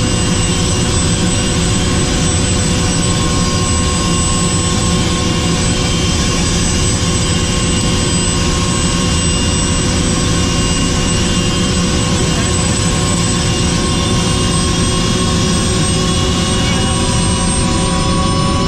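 Helicopter turbine engine and rotor running: a loud, steady whine over rotor noise, with a few of the whining tones rising slightly in pitch near the end.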